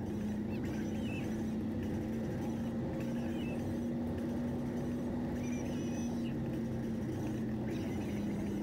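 Steady drone of a car's engine and road noise heard inside the cabin while driving, with a few faint short squeaks over it.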